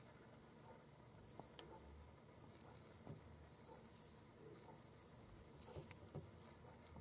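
Near silence: room tone, with faint short high-pitched chirps recurring irregularly about three times a second and a few soft clicks.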